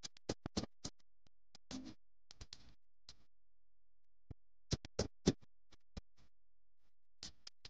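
Kitchen knife cutting through a banana stem and knocking on a wooden chopping board: irregular sharp knocks and short crunchy cuts, clustered about two seconds in and again around five seconds.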